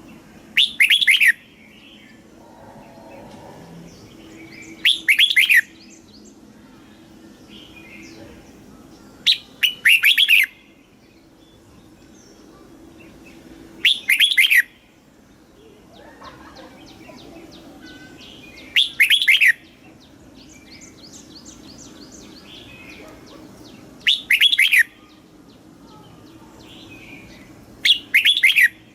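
Red-whiskered bulbul singing: seven short, loud phrases of quick sweeping notes, each under a second, about every four to five seconds, with faint chirping between them.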